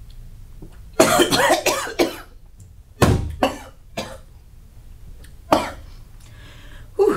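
A woman coughing: a rapid run of coughs about a second in, then single coughs spaced out over the following seconds.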